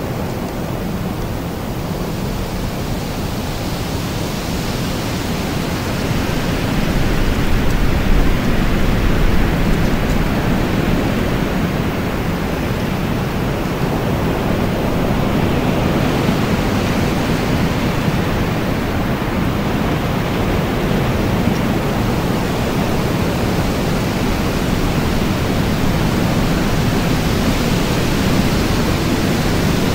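Wind blowing as a steady rush, growing a little louder about seven seconds in.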